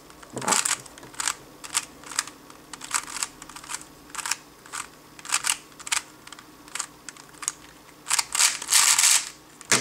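Plastic 3x3 speedcube being turned quickly with fingertricks through a J-perm algorithm: a run of sharp clacks at uneven intervals, with a denser flurry of turns near the end.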